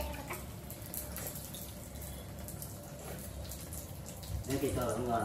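Light clinks of cutlery and dishes at a meal over a steady hiss, with a person's voice starting near the end.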